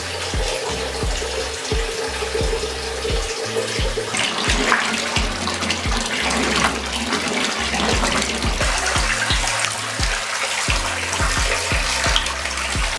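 Water running from a bath tap into a bathtub, a steady rushing hiss, over background music with a steady bass beat.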